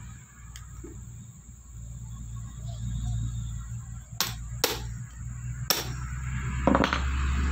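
Several sharp metallic clicks, mostly in the second half, as a screwdriver works the screws in the end cover of an Isuzu Panther starter motor, over a low steady hum.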